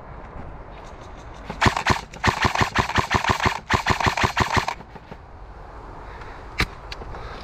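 Airsoft rifle firing rapid full-auto bursts, three runs of quick clicking shots over about three seconds, then a single sharp click near the end.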